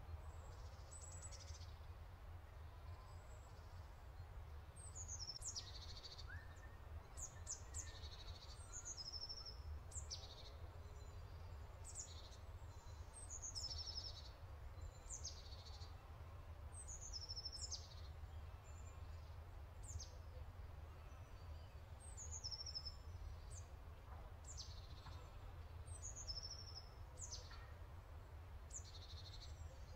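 Small birds singing: short, high chirping phrases that drop in pitch, repeated every second or two, over a steady low hum.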